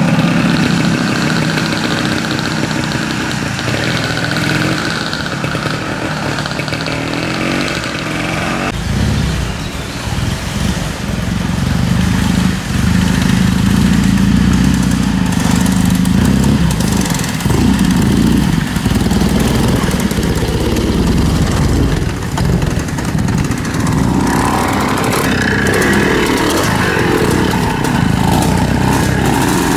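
Classic off-road motorcycles' engines running and revving as they ride up a forest trail one after another. The engine note changes abruptly about nine seconds in.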